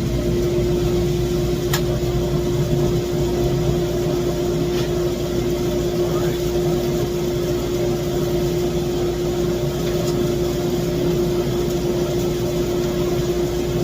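SuperMax 25-50 drum sander running at full speed with a steady hum and an even tone, its motor having just spun up as it begins. Two faint clicks sound in the first few seconds.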